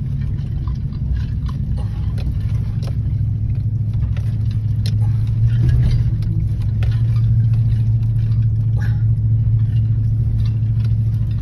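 Truck engine pulling up a rough dirt hill in four-wheel drive, heard from inside the cab: a steady low drone, a little louder from about halfway, with scattered knocks and rattles.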